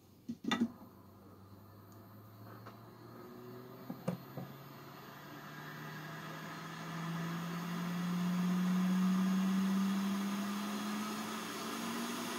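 A few sharp clicks, then a small electric motor or fan spinning up, its hum rising slowly in pitch and getting louder, with a rushing air-like hiss.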